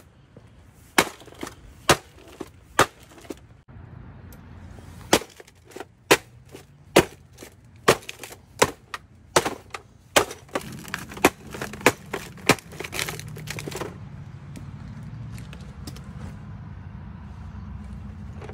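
Ariat Rambler cowboy boots stomping again and again on a small Sylvania LCD TV, its plastic frame and LCD screen cracking and crunching with each sharp hit, about two hits a second at their fastest. The stomps die away about fourteen seconds in, leaving a low steady background noise.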